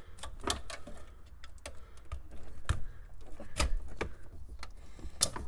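Plastic wiring-harness connectors and the antenna cable being unplugged from the back of a factory car radio: irregular clicks and knocks as latches release and plugs and the metal radio case are handled.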